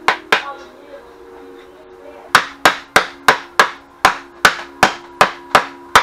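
Hammer blows on a wooden barrel assembly, driving its round wooden end plate down onto the dowel rods: two sharp blows at the start, then after about two seconds a steady run of blows, about three a second.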